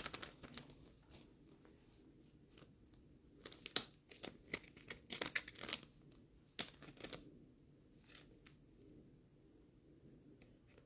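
Light rustling and scattered sharp clicks of trading cards and plastic card sleeves or top loaders being handled, with the busiest handling in the first two thirds.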